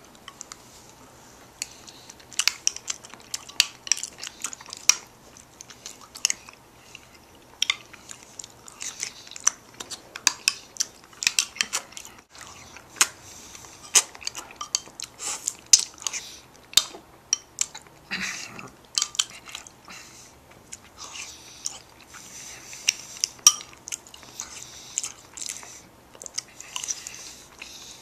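Close-up, wet chewing of soft canned beef ravioli in sauce, eaten off a fork: open-mouthed munching with many short, sharp lip smacks at an irregular pace.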